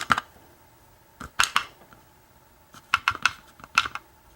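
Small metal clicks and taps as an American 1100 padlock is taken apart by hand, its tiny pins and the tools knocking against the lock body and work surface. A click right at the start, then short clusters of clicks about a second and a half in, around three seconds in, and near the end.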